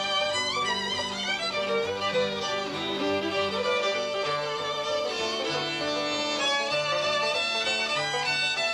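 Instrumental theme music led by a fiddle, over a bass line stepping between low notes.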